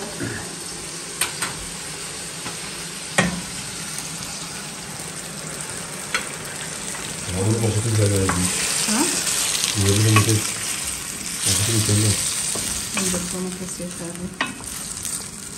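Chopped zucchini and tomato sizzling in a stainless-steel pan while being stirred with a wooden spoon. A few sharp clicks of spoon on pan come in the first seconds, and the sizzling and stirring grow louder from about halfway.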